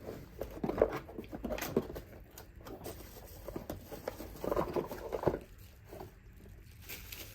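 Small plastic bag and packaging handled by hand: light rustling with scattered soft taps and clicks.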